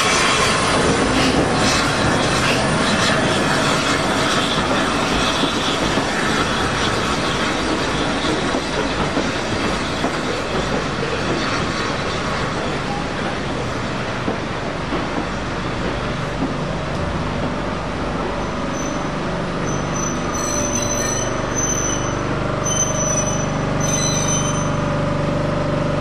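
A train running on rails, a steady rumble and rattle, with high thin wheel squeal coming and going in the last several seconds.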